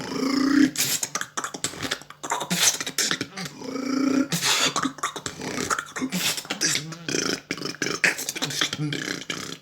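A person beatboxing: quick mouth-made kick, snare and hi-hat hits in a dense rhythm, with two short hummed bass notes, one near the start and one about four seconds in.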